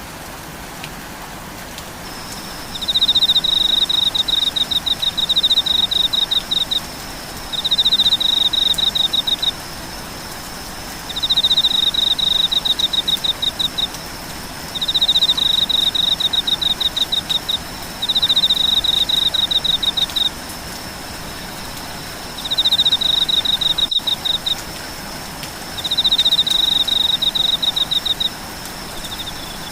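A calling insect giving loud, fast-pulsed high trills, each two to four seconds long with about a second between. Behind it, a steady thin high whine sets in about two seconds in, over a soft hiss of rain.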